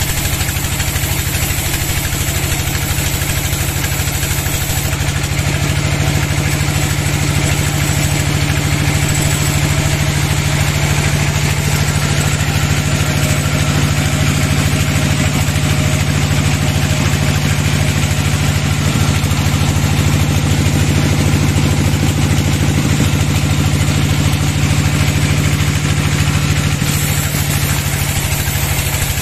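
Sawmill bandsaw running steadily, its blade cutting lengthwise through a log: an even mechanical hum with a continuous hiss.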